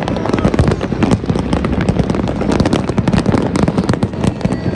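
Aerial fireworks and firecrackers going off in a dense barrage, a continuous crackle of rapid bangs, many every second.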